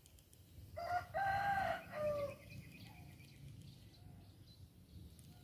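A rooster crowing once, lasting about a second and a half: a short opening note, a long held note, then a falling end.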